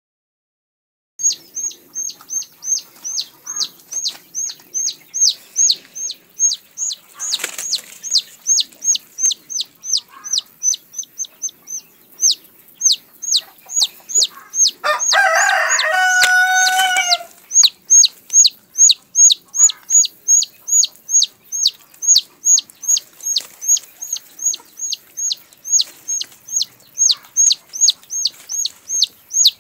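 A village chicken chick peeping over and over, about three high, falling peeps a second. About halfway through, a hen gives a loud, harsh squawk lasting about two seconds, and there is a brief rustle a quarter of the way in.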